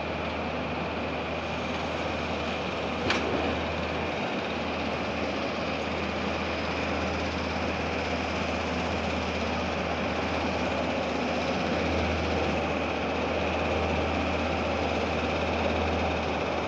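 Steady heavy machinery noise at a plant construction site: a continuous low engine-like hum under a broad hiss, unchanging throughout, with a single short knock about three seconds in.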